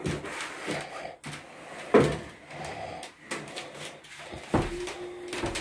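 A wooden dining chair being handled and moved: a series of knocks and bumps, the loudest about two seconds in, with a short steady squeak near the end.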